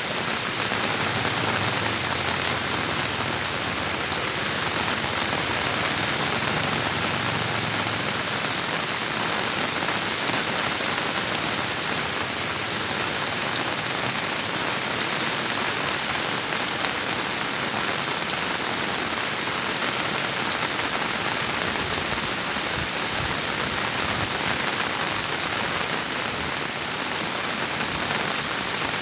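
Steady rain pattering on an asbestos-cement corrugated roof: a dense, even hiss of drops with fine individual ticks, unchanging throughout.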